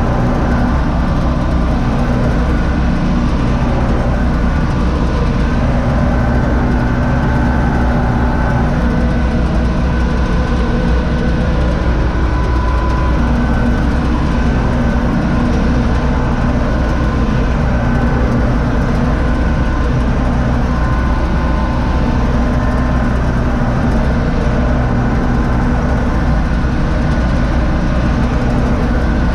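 Universal U650 tractor's four-cylinder diesel engine running steadily under load, heard from inside the cab, as it drives a Zmaj Zemun 223 corn picker through standing corn.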